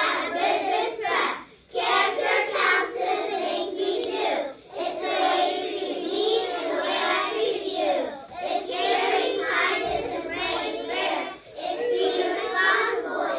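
A class of young children singing together in unison, in phrases of a few seconds with short breaks for breath between them.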